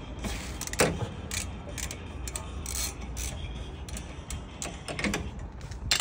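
Ratchet and T45 Torx socket working on the rear brake caliper bolts of a VW Taos, giving a few irregular sharp metallic clicks and clinks, the loudest about a second in.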